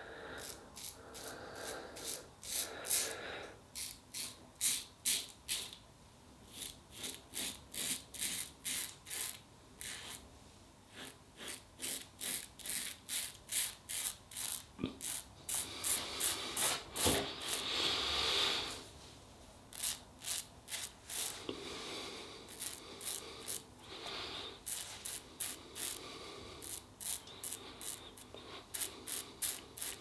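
Merkur Futur double-edge safety razor on its highest setting, fitted with a new Lord Platinum blade, cutting lathered stubble: short rasping strokes in quick runs, about three a second, with brief pauses between runs.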